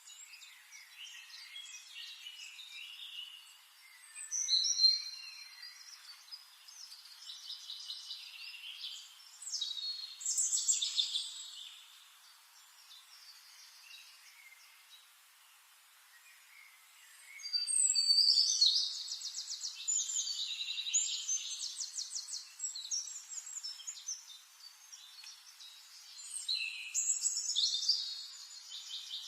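Forest songbirds singing in separate bursts of chirps and rapid trills, with quieter stretches between them. The longest and loudest trilling phrases come a little past the middle and again near the end.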